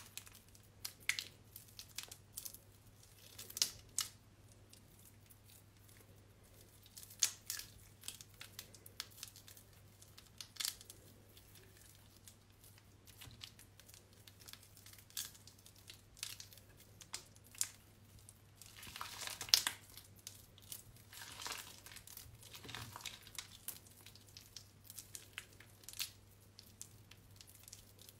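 Hands squeezing and crumbling soaked, mushy bar soap: irregular short, wet crackling and tearing sounds, with a denser run of them about two-thirds of the way in.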